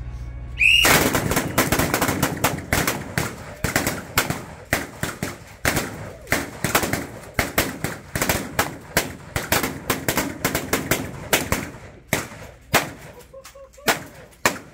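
A volley of shotguns fired by several shooters at once: dozens of overlapping shots in rapid succession, thinning out to scattered single shots over the last few seconds. A short high tone sounds just before the firing starts.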